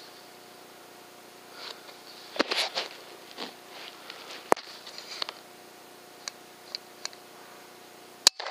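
Rustling and a few clicks from handling an air rifle as it is moved onto a new spot, then a single sharp air rifle shot near the end.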